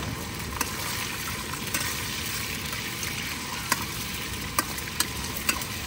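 Pork belly frying in a pan over a wood fire: a steady sizzling hiss with a few sharp clicks scattered through it.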